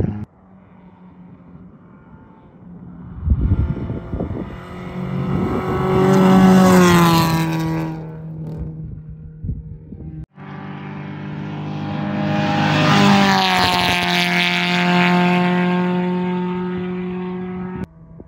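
Two rally cars at full throttle passing on a gravel stage, one after the other. The first engine note builds as it approaches and drops in pitch as it goes by. The second starts abruptly about ten seconds in, loud and steady, then falls in pitch as it passes.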